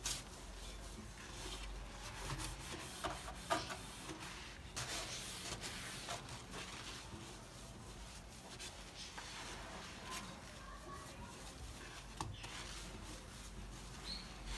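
Household cleaning sounds: intermittent rubbing and scrubbing, with scattered small clicks and knocks of objects being handled.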